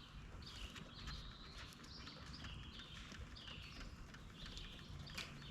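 Faint bird chirping: a quick run of short, repeated high chirps over quiet outdoor background noise.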